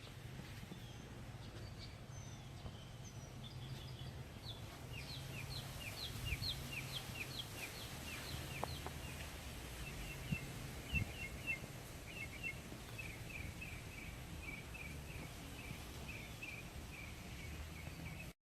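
A bird chirping in long runs of quick, evenly repeated short notes, about three a second, over a steady low background rumble.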